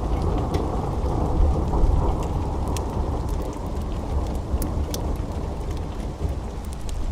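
Steady heavy rain with a deep rumble of thunder that swells about a second and a half in. Sharp crackles and pops from a wood fire are scattered throughout.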